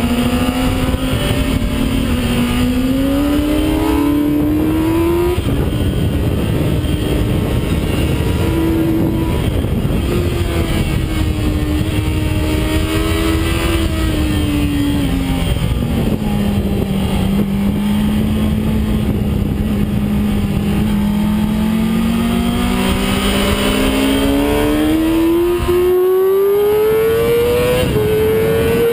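Yamaha YZF-R6's inline-four engine at high revs, its note falling and rising as the bike brakes and accelerates through corners, under a heavy rush of wind. Over the last few seconds the note climbs steadily as it accelerates onto a straight.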